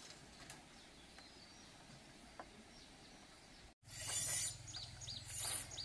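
Faint clicks of split bamboo strips being handled in weaving, then, after a cut about four seconds in, several short bird chirps over bursts of high hiss and a steady low hum.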